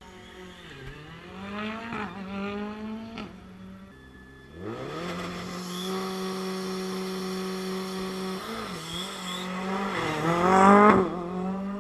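Ford Fiesta R5 rally car's turbocharged 1.6-litre four-cylinder engine revving up in rising sweeps. It is then held at steady high revs on the start line, and near the end it accelerates hard, rising to its loudest as it launches.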